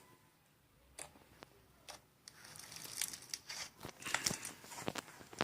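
Slime being handled in a slime ASMR video: soft crackling and scattered sharp clicks and pops, growing busier about two seconds in.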